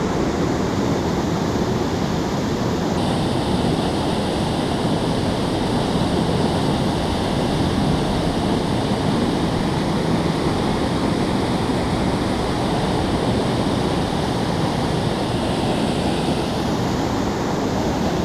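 Water rushing steadily over a concrete dam spillway into the river below.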